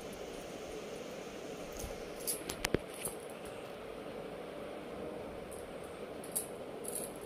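Hands working wood apple (bel) pulp in a glass bowl to pick out the seeds: soft handling noise with a few sharp light clicks and clinks, a cluster about two to three seconds in and two more near the end, over a steady background hum.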